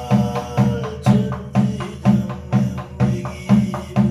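Korean shaman's barrel drum (buk) beaten in a steady rhythm of about two strokes a second, with lighter strikes between the beats. It keeps time under a held chanting voice that slides slowly in pitch, as in a gosa scripture chant.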